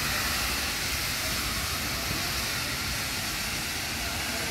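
LMS Jubilee class 4-6-0 steam locomotive pulling away, wrapped in a steady hiss of escaping steam, the sign of its cylinder drain cocks blowing as it starts off.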